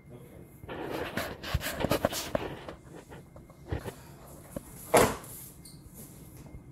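Large cardboard shipping box being opened by hand: irregular scraping and crackling of the cardboard flaps and packing tape, with one louder, sharper crack about five seconds in.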